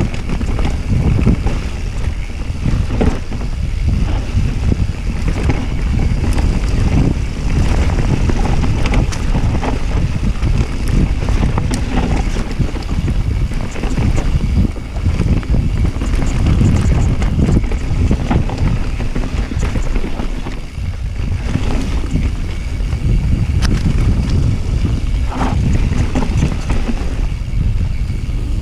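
Wind buffeting the microphone of a rider-mounted action camera on a fast mountain-bike descent, over the steady rumble of tyres on a dirt forest trail, with frequent clicks and rattles from the bike jolting over bumps.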